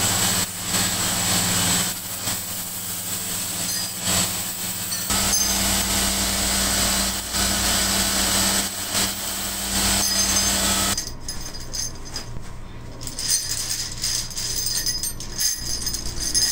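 Electric buffing machine running, a motorcycle clutch lever pressed against its cloth buffing wheel: a steady hum with a hissing rush. About eleven seconds in this gives way to quieter, scattered clinks of metal clutch levers being handled in a pile.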